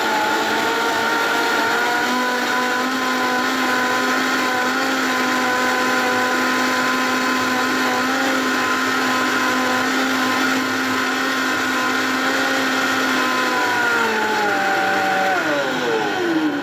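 High-speed countertop blender running steadily at full speed, blending sesame seeds, dates and water into sesame milk. In the last two or three seconds the motor winds down and its whine falls in pitch.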